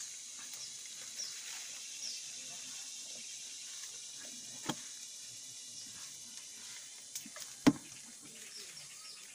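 A knife blade working at a wild honeycomb on a tree branch, with two sharp knocks, the second much the loudest, in the second half. A steady high insect hiss runs underneath.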